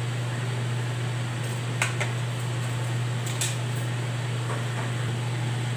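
Steady low motor hum, with a few light clicks near two and three and a half seconds in.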